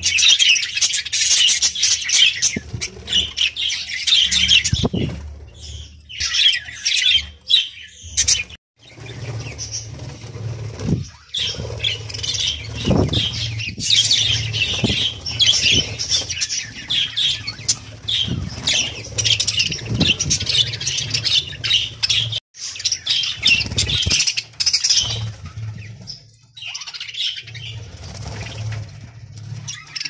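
A flock of budgerigars chattering with rapid high warbles and chirps, with wing flaps as birds flutter and take off.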